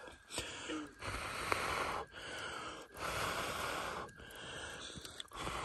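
A person blowing on a campfire's embers to stoke it up: a run of long, forceful breaths, about one a second, each a rush of air with a short pause between.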